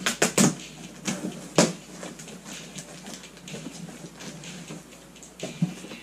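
Cardboard shipping box being opened by hand: the flaps are pulled back with a few sharp rustles and knocks in the first two seconds, followed by lighter crackling and rustling as the contents are handled, with a few more knocks near the end.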